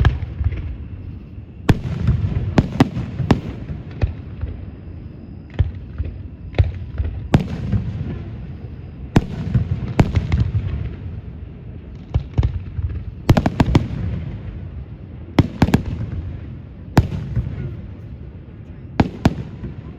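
Aerial fireworks shells bursting in a display: sharp bangs about every second or two, some in quick pairs, each trailed by a low rumble.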